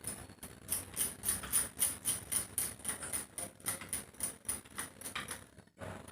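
A spoon stirring a small batch of honey paste in a bowl, clicking and scraping against the bowl about three times a second. The stirring stops shortly before the end.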